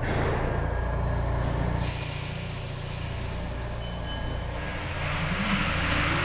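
Paris Métro MP73 rubber-tyred train running with a heavy, steady low rumble. Near the end a motor whine starts and rises in pitch as the train gathers speed.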